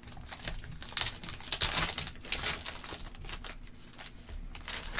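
Wrapper of a Panini Optic basketball hobby pack crinkling and tearing as the pack is opened, with several rustling, crackling handling noises and cards being handled.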